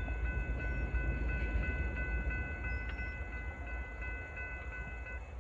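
Railroad grade-crossing bell ringing steadily at about three strikes a second, then stopping near the end, over a low rumble.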